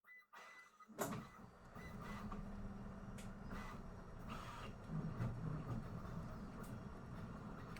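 A solder fume extractor fan switches on about a second in and runs steadily with a low hum. Scattered light clicks and taps come through over it.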